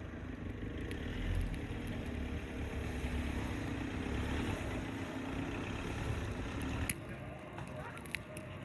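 A motor vehicle's engine running with a steady low rumble, with a few sharp ticks over it. The rumble cuts off abruptly about seven seconds in.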